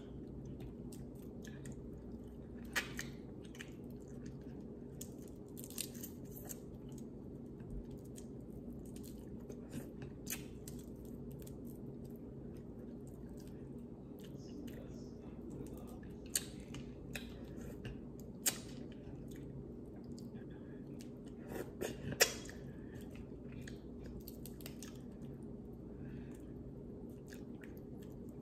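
Close-up chewing of boiled seafood, with scattered sharp cracks and snaps as crab shells are broken and picked apart by hand. A steady low hum runs underneath, and the loudest snaps come about 22 seconds in.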